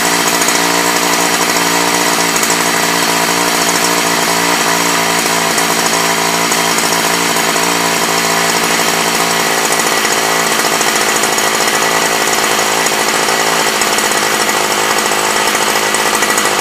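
Old McCulloch small two-stroke engine running steadily at a constant speed, burning the last fuel left in its carburettor after the tank was emptied, so that it will run dry and stop. This is the final step of winterizing it.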